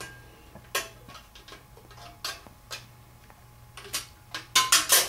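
An imprinter's protective shield being handled and fitted back into place: a series of sharp clicks and clacks, with a quick run of louder ones near the end.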